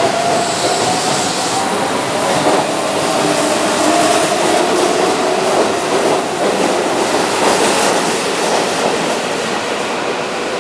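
Keihan 7200 series electric train (7201 formation) pulling along the platform, its VVVF inverter whining and rising slightly in pitch over the running noise, with wheels clacking over rail joints as the cars go by.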